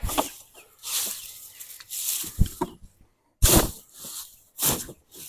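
Five or so short bursts of rustling, hissing noise, about a second apart.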